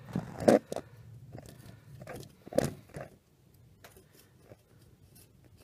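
Handling noise from a phone camera being positioned by hand: rubbing against the microphone and a few sharp knocks in the first three seconds, then only faint scattered ticks.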